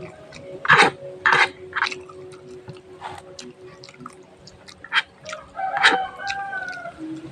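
Close-miked eating sounds of spicy fried instant noodles: wet slurps and chewing clicks in irregular bursts. Around six seconds in a rooster crows in the background.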